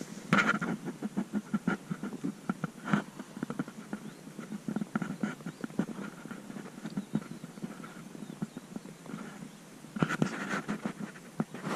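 Irregular rattling and knocking of a camera being jostled as it moves along a rough asphalt lane, with a louder stretch of noise about ten seconds in.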